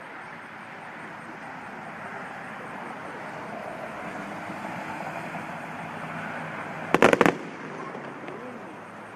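Outdoor background hubbub, then about seven seconds in a quick run of three or four loud bangs as an aerial firework shell bursts.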